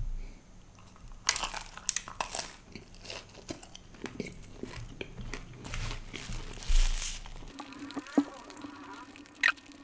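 Close-up chewing of a crunchy fried momo: repeated crisp crunches with wet mouth sounds, easing to quieter chewing for the last couple of seconds.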